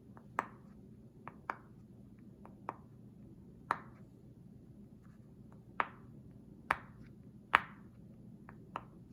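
Silicone pop-it fidget toy, its bubbles pressed through one at a time, each giving a sharp little pop. About a dozen pops come at uneven intervals.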